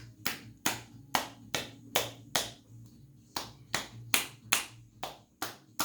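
Rhythmic hand percussion on a patient's chest wall: sharp slaps of the masseur's hands on the body, about two to three a second, with a short pause about halfway. This is chest-percussion massage to loosen and clear phlegm from the bronchi.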